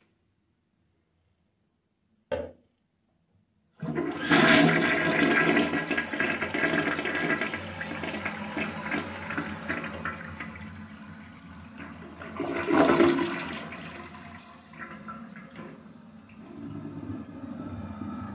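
Older American Standard Cadet 3.5-gallon-per-flush toilet flushing: a short knock about two seconds in, then a loud rush of water that tapers off, surges again about two-thirds through, and runs on more quietly.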